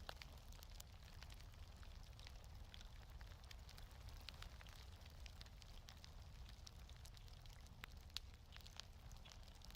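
Faint wood fire crackling in a fireplace, with irregular small pops and ticks over a low steady rumble.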